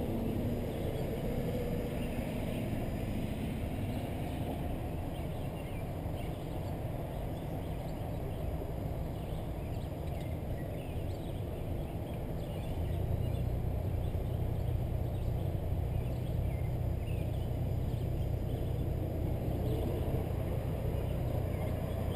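Car engine running at low speed, a steady low hum and rumble heard from inside the cabin as the car idles and creeps forward in a queue. It grows a little louder about halfway through.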